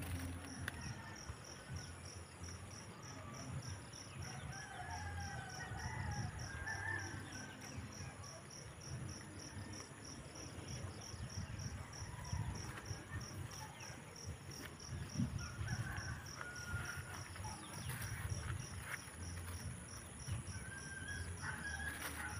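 Crickets chirping steadily in a rapid, even pulse, with a rooster crowing several times and leaves rustling as greens are picked by hand.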